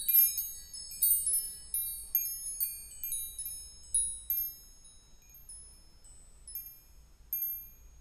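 High, tinkling chimes struck at irregular moments, each tone ringing out and fading. The strikes come thick and fast for the first few seconds, then thin out to a few scattered notes near the end.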